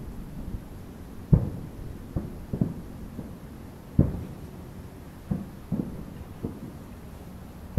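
Aerial fireworks shells bursting at a distance: a series of dull booms and thuds, about eight of them at uneven spacing, the loudest about four seconds in, each trailing off in a short echo.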